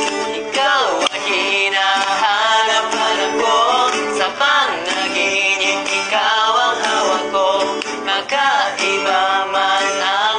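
Two men singing a Tagalog song together to a strummed acoustic guitar.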